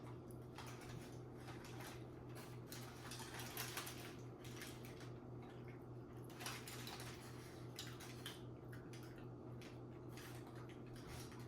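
Quiet eating sounds: a few faint clicks and scrapes of a utensil against a food container, scattered a few seconds apart, over a steady low hum.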